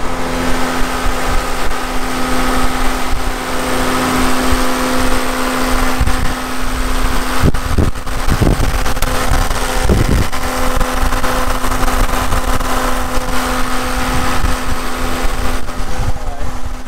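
John Deere 6715 diesel engine running steadily on its newly installed injection pump.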